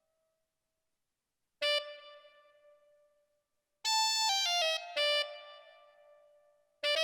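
Electronic keyboard tones played one at a time: silence for about a second and a half, then a single note that fades away, a quick descending run of notes about four seconds in, another fading note, and a fresh note near the end.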